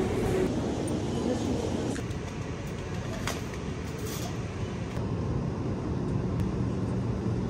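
Wire shopping trolley rolling through a supermarket aisle: a steady rumble, with a couple of sharp clicks about three and four seconds in.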